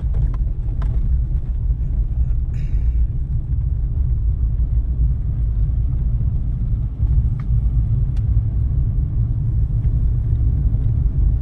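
Steady low rumble of a car on the move, heard from inside the cabin, with a few faint clicks and a brief hiss about two and a half seconds in.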